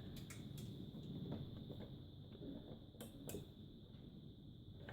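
Faint clicks and handling noise from small plastic front-panel connectors being pushed onto a motherboard header pins, a few sharp ticks near the start and a couple around three seconds in, over a faint steady high whine.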